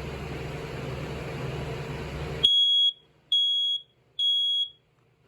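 Kidde Firex i9050 smoke alarm sounding when tested: three loud, high-pitched beeps of about half a second each, in the temporal-three evacuation pattern. Before them, for a couple of seconds, there is a steady background hum.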